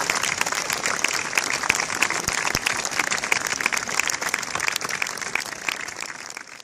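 A large crowd clapping, a dense patter of many hands. It dies away in the last second or so as the sound fades out.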